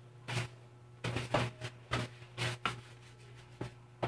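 Short, scattered rustles of a paper tissue and parcel packaging being handled, over a steady low hum.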